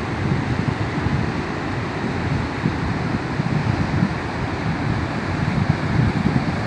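Rough, choppy sea with waves breaking and churning in a steady heavy wash, with wind buffeting the microphone.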